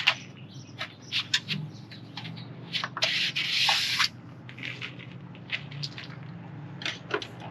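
White plastic U-channel pried with a thin-blade screwdriver and pulled out of the screen door's upper panel track: a run of small clicks and scrapes, with a longer scraping rub about three seconds in that lasts around a second.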